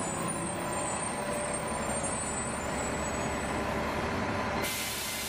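City bus engine running with a steady rumble. About 4.7 s in, a sharp hiss of air starts.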